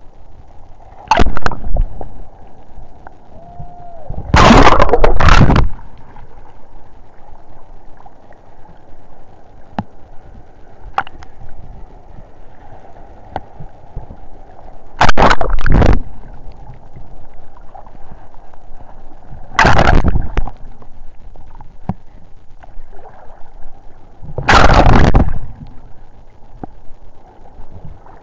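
Choppy sea waves washing over and slapping against a microphone at the water's surface: a steady low wash broken by about five loud splashes, the longest a little over a second.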